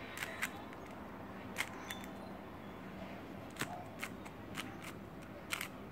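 GAN Monster Go 3x3 magnetic speedcube being turned by hand: scattered, irregular sharp clicks as its layers are twisted.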